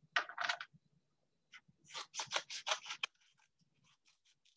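Kids' scissors snipping through a folded paper index card: a few crisp cuts near the start, then a quick run of short snips about two seconds in.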